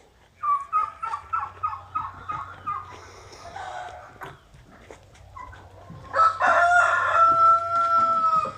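Chickens calling: a quick run of short clucking notes, then a rooster crowing about six seconds in, ending in one long held note that stops abruptly.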